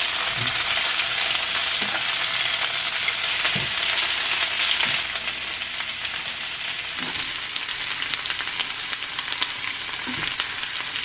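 Gnocchi, mushrooms and green beans sizzling in a frying pan, stirred with a spatula that scrapes and taps against the pan. The sizzle eases a little about halfway through.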